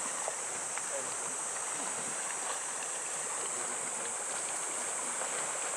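Steady waterside ambience: an even hiss of water at the shore, with a constant high-pitched whine over it.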